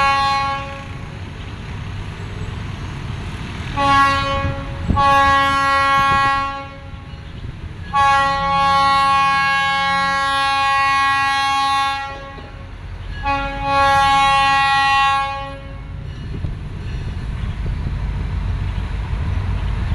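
Diesel freight locomotive's multi-chime air horn sounding a series of blasts as it approaches a road crossing: a short one about four seconds in, then longer ones, the longest lasting about four seconds. A low diesel and rail rumble runs underneath between blasts.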